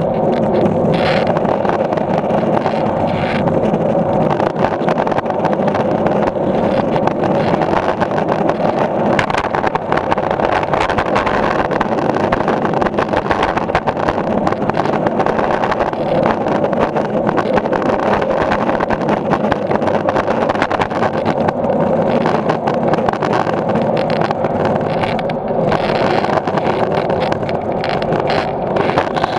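Skateboard wheels rolling over a concrete parking-garage deck: a steady, loud rolling rumble with a few scattered clicks and knocks.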